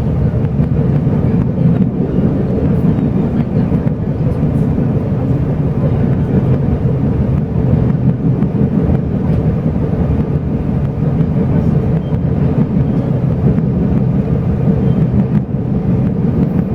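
Steady rumble inside a moving Chu-Kuang express passenger coach: wheels running on the rails and the car's running noise, even and unbroken.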